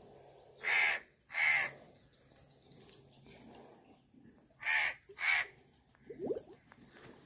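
Crow cawing: four harsh caws in two pairs, a few seconds apart. Small birds twitter briefly after the first pair.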